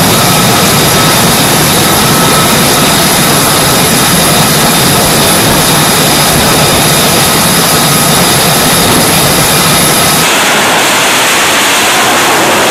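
Jet engines of carrier aircraft running on the flight deck, with an F/A-18 Super Hornet taxiing forward: a loud, steady roar with a high whine over it. About ten seconds in the whine drops away, leaving a steady rushing jet noise.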